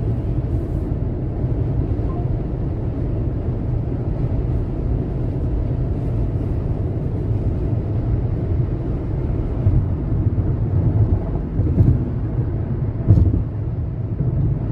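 Steady low road and engine rumble of a car cruising on a freeway, heard from inside the cabin. A few soft thumps come near the end.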